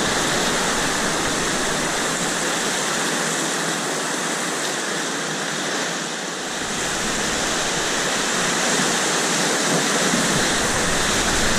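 River whitewater rushing steadily, heard from a canoe in the middle of the rapid.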